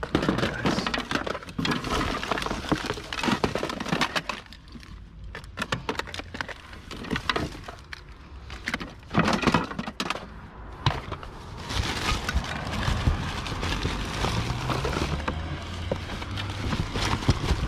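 Hands rummaging through a pile of household rubbish: cardboard boxes, plastic bags and loose objects rustling, knocking and clattering as they are pulled about and shifted. A low steady rumble joins in over the last few seconds.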